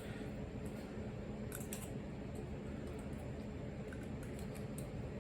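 Faint, scattered clicks and light taps of small pocket items, such as pens, being handled, over a steady low background hum.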